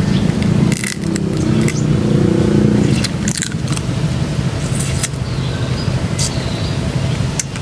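Eating crab: a series of short clicks and crunches as the shell is bitten and sucked, over a steady low rumble. A bird chirps faintly now and then.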